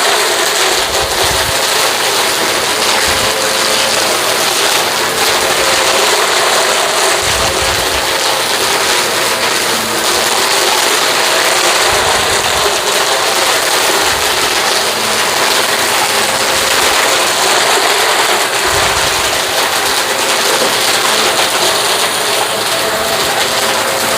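Hoover upright vacuum cleaner running steadily while it picks up dirt and kitty litter, with a few low thuds as it is pushed along.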